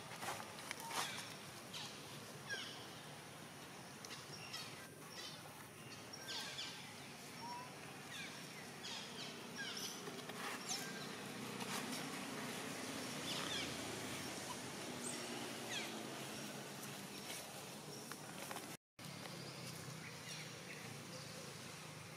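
Outdoor ambience: many short, scattered high chirps and calls from small animals over a faint steady background hiss, with light ticks and rustles.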